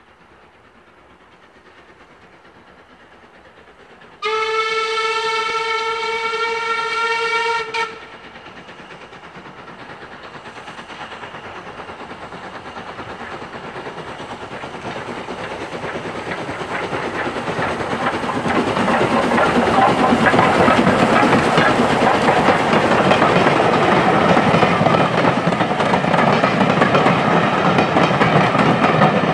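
Steam tank locomotive giving one steady whistle of about three and a half seconds, then its train approaching and running past, growing louder until the engine and carriages go by close at hand.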